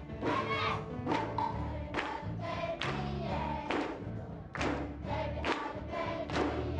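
Children's gospel choir singing a Christmas song, with hand claps on the beat roughly once a second.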